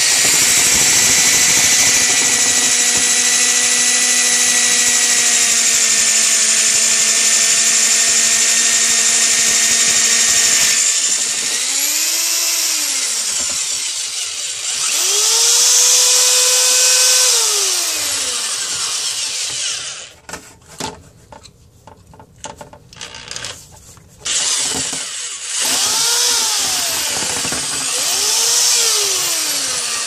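Power drill spinning a fiberglass rod with a rotary brush inside a dryer vent pipe, scrubbing out lint. The motor whine holds steady for about ten seconds, then its speed rises and falls several times. About two-thirds through it drops out for a few seconds with a few knocks, then spins up again.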